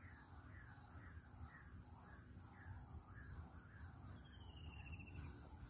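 Faint outdoor ambience: a steady high insect hum, with a short call repeating about twice a second and a brief falling trill about four seconds in.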